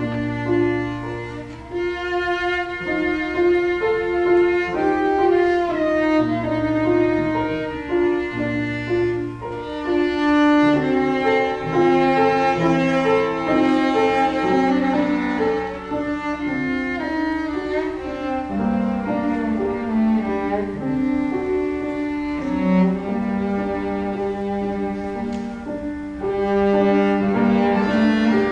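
Cello bowed through a melody of held notes, with piano accompaniment.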